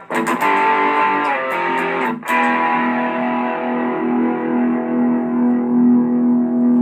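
Electric guitar played through a BOSS OD-20 Drive Zone overdrive/distortion pedal, distorted. A quick run of picked strums over the first two seconds, then a chord struck and left to ring out for the rest.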